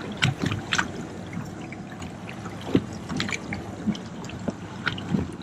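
Water trickling and splashing at the side of a drifting boat, with scattered small clicks and knocks.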